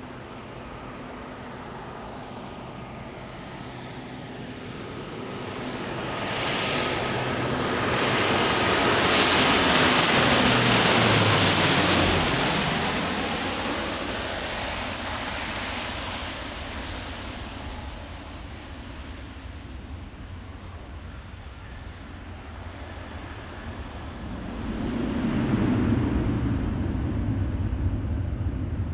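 Bombardier Dash 8-400 (Q400) turboprop airliner flying low overhead on landing approach. Its propeller and engine noise builds to a peak with a high whine that drops sharply in pitch as it passes, then fades. Near the end a second, lower rumble swells as the aircraft slows on the runway.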